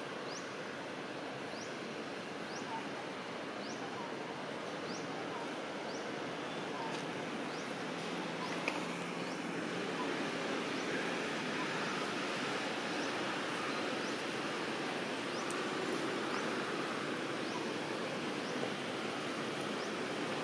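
Steady outdoor background noise, like wind, with a faint short high chirp repeating about once a second for the first few seconds and again near the end.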